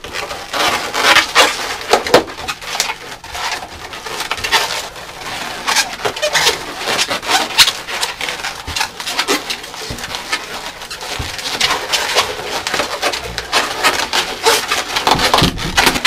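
Latex twisting balloons (260s) squeaking and rubbing against each other as they are bent and twisted, in a dense, irregular run of short squeaks and creaks.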